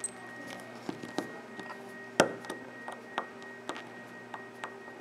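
Small clicks and taps of a metal spring-bar tool and spring bar against a resin watch band and its metal end piece as the bar is worked into place, with one sharper click a little over two seconds in. A steady faint hum runs underneath.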